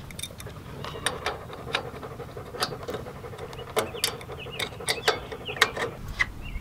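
Light, irregular metal clicks and clinks of a wrench and the terminal hardware on a backhoe's battery cable as the corroded connection is loosened and taken apart.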